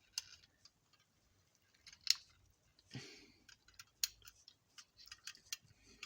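Small clicks, taps and brief rustles of plastic model-kit parts being handled, as an interior door card is worked and pressed into place on a model car body.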